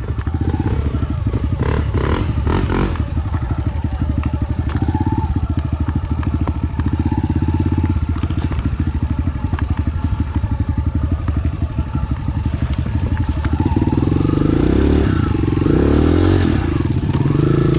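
Enduro dirt bike engine running at low revs with a fast, even pulsing beat, revving up and down a few times near the end.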